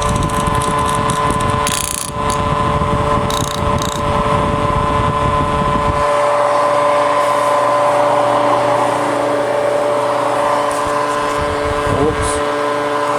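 Homemade mini air-raid siren, an electric motor spinning a rotor against eight horns, sounding a steady wail at a constant pitch. A low rumble runs under it for about the first six seconds.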